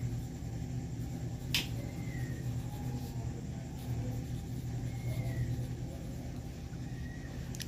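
Pen writing on paper: faint strokes with a few short squeaky glides, over a steady low hum, and a single sharp click about one and a half seconds in.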